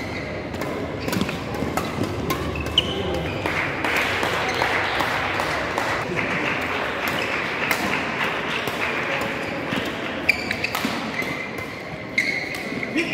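Badminton play in a sports hall: sharp racket-on-shuttlecock hits and short shoe squeaks on the court floor, over the background chatter of a busy hall.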